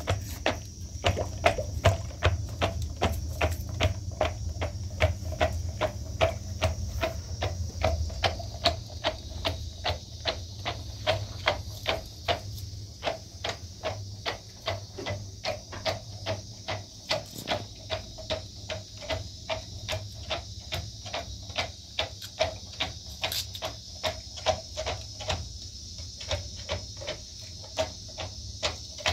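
A wooden pestle pounding lumps of dried kashk in water inside a plastic bottle. The strokes knock in a steady rhythm of about two to three a second, with a brief pause near the end.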